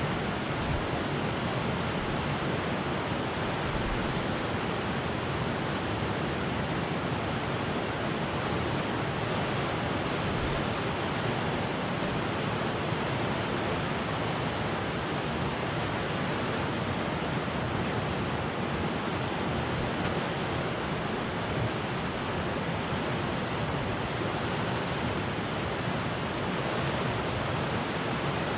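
Steady rushing of flowing stream water, an even, unbroken noise.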